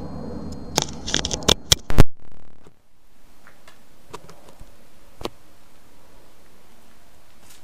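Handling noise as the Sony ECM-DS30P stereo mic's plug is pushed into the Kodak Zi8's mic jack: a quick run of clicks and scrapes, the loudest about two seconds in. A brief dropout follows as the camera switches to the external mic, and afterwards the background is lower, with a few faint ticks.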